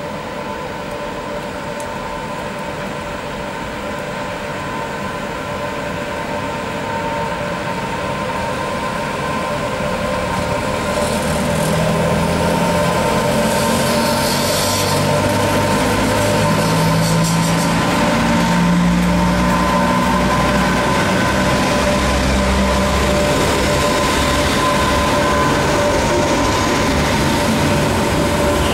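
Pair of Freightliner Class 86 25 kV AC electric locomotives approaching and drawing alongside with a freight train, their motors and blowers giving a steady hum and whine that grows louder. From about eleven seconds in, low humming tones shift in pitch in steps as the locomotives come level.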